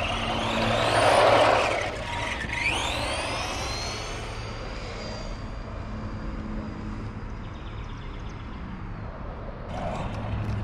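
Arrma Senton 4x4 Mega electric RC truck driving on asphalt: its motor and drivetrain whine rises and falls in pitch as it speeds up and slows, with tyre rush on the pavement. The sound is loudest in the first two seconds, then settles into a thinner steady whine that fades as the truck runs farther off.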